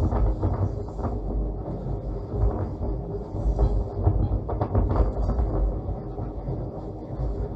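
Interior ride noise of 1898 electric tram C 29 running: a steady low rumble of the wheels on the track and the wooden body, with a few knocks and rattles about four to five seconds in.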